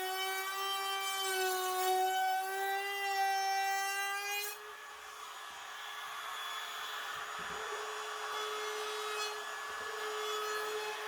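Electric power tool motor running at a steady whining pitch on wood. About four and a half seconds in, the pitch steps up a little and the sound turns hissier.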